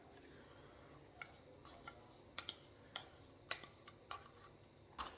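A spoon clicking faintly and irregularly against a bowl as yogurt and muesli are spooned in and mixed.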